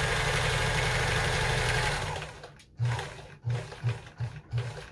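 Kenmore 158.14000 sewing machine running steadily, stitching through fabric. About two seconds in it slows and stops, then runs in a series of short bursts of a few stitches each.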